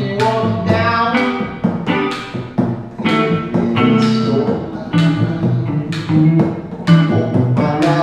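An acoustic guitar and an electric guitar playing a song together, with regularly repeated strums and picked notes.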